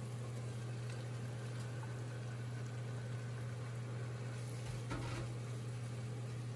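Chicken curry masala sizzling and bubbling in a pot as chicken pieces are tipped in and stirred, over a steady low hum. There is one brief louder noise about five seconds in.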